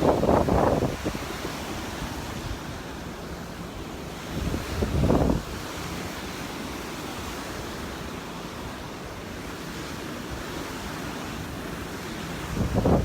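Surf washing on the beach under steady wind noise on the microphone. There are louder gusty bursts of about a second each at the start, about five seconds in, and at the end.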